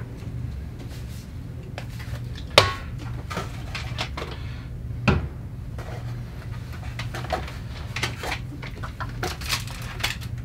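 Household items being handled, taken out of a plastic laundry basket and set down on a countertop: scattered knocks and clatters, the sharpest about two and a half seconds in and another about five seconds in, over a steady low hum.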